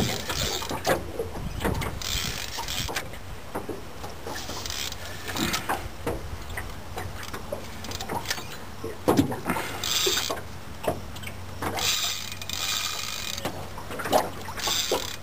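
Fishing reel's drag buzzing in short bursts every few seconds as a large hooked fish pulls line against the hard-bent rod, with scattered knocks of handling.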